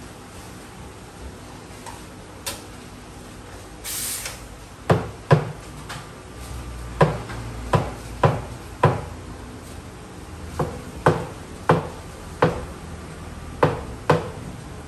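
About a dozen sharp knocks and clinks, several in quick pairs, as ceramic cups and barista tools are handled and set down on an espresso machine and counter, over a low steady machine hum. A brief hiss comes about four seconds in.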